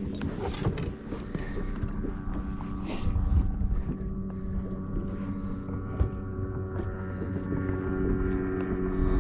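A bass boat's motor hums steadily, a low tone with a higher whine above it, over wind noise, with a few small knocks from handling on the deck, the sharpest about six seconds in.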